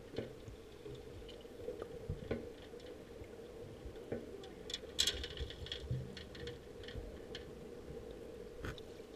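Muffled underwater sound picked up by a submerged camera among kokanee salmon: a faint steady hum with scattered light clicks and ticks, a short cluster of them about five seconds in.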